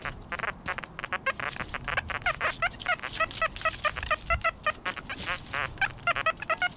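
XP Deus 1 metal detector with a 5x9 coil giving a rapid string of short beeps, several a second, some steady in pitch and some warbling, as the coil sweeps over ground full of iron and foil trash.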